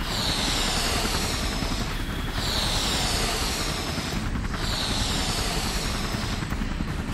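Helicopter sound effect: fast rotor chop under a high whine that falls in pitch and starts over about every two seconds, as a looped sample does.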